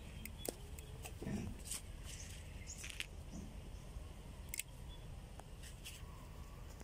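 Scattered faint clicks and ticks of small hand work on a generator's winding, over a low steady rumble.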